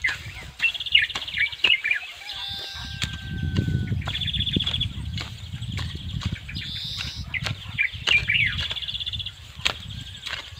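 Hand hoe chopping into dry soil in repeated sharp strikes. Through it a songbird repeats a short high trilling phrase every couple of seconds.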